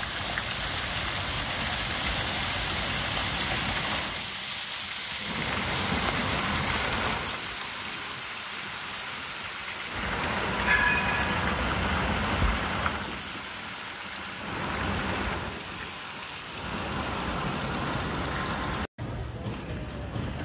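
Fountain water splashing and pattering into its basin, a steady rushing sound that swells and dips every few seconds. Near the end it cuts off abruptly, giving way to quieter street sound.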